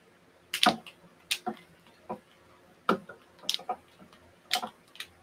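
Kumihimo tama bobbins clicking and knocking as they are lifted and moved around a marudai braiding stand: about eight sharp clicks at irregular intervals.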